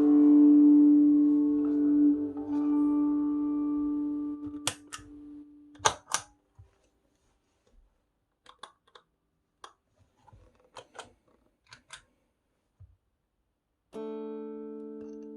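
Electric guitar chord through reverb, delay, distortion and overdrive pedals, ringing out and fading over about four seconds. A series of short sharp clicks and knocks follows, and near the end a new chord is struck.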